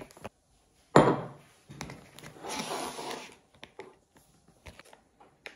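A glass cup set down on a wooden table with a sharp knock about a second in. It is followed by a plastic pouch crinkling in the hands for a second or so, and a few light clicks.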